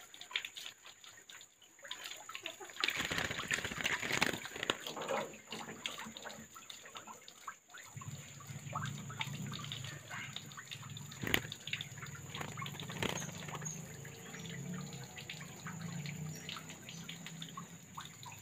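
Water splashing, sloshing and dripping in a plastic basin as a lory is dipped and washed with water from a garden hose, with scattered drips and a few sharp knocks. A low steady sound joins about eight seconds in.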